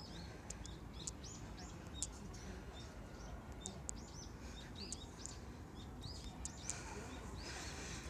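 Small birds chirping: quick, short, high chirps several times a second over a steady low rumble, with a brief hiss of noise near the end.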